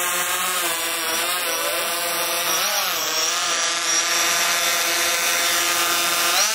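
DJI quadcopter drone's propellers buzzing at a steady pitch, the pitch wavering up and down briefly about three seconds in.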